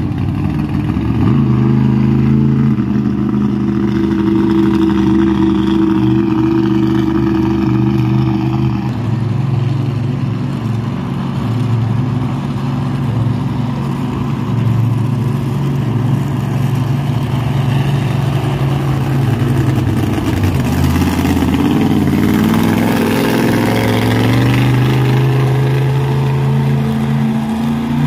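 Monster truck engines running loud at high revs as the trucks drive on the dirt arena, the pitch holding steady, then climbing as an engine revs up about three quarters of the way through.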